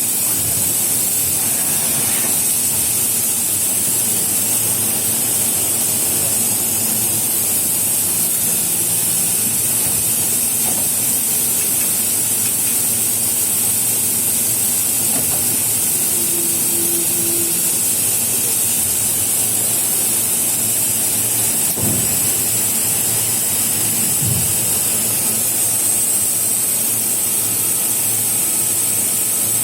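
Five-axis machining center running with a steady hiss and a thin high whine over a faint low hum, with a couple of soft knocks about three-quarters of the way through.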